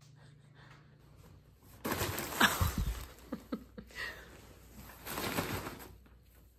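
Rustling and crinkling of a cat playing, loudest in a burst about two seconds in, with softer rustles around four and five seconds.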